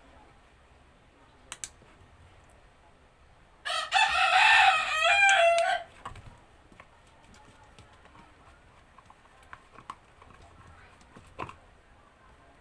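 A rooster crows once, about four seconds in, a loud call of about two seconds with a stepped, wavering pitch. Faint scattered clicks and taps come before and after it.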